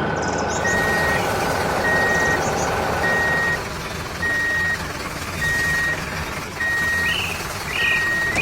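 A heavy vehicle's reversing alarm beeping steadily, a single even tone about once a second, over the continuous rumble of its engine.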